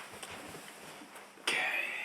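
Hardware being handled inside a Mac Pro's metal case during a graphics card install: light rustling, then a sudden scrape about one and a half seconds in.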